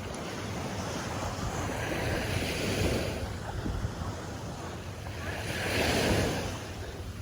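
Sea waves washing onto the shore, the rush of surf swelling twice, with wind buffeting the microphone.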